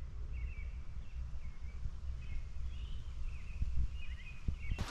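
A small songbird chirping repeatedly in short, quick phrases, roughly once a second, over a low steady rumble.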